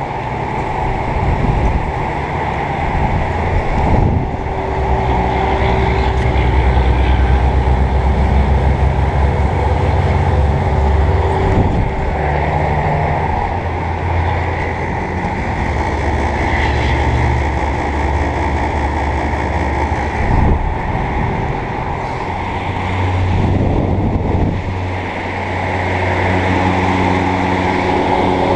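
Outdoor central air conditioner condensing units running: a steady low compressor hum under the rushing of the condenser fan. The hum changes pitch near the end.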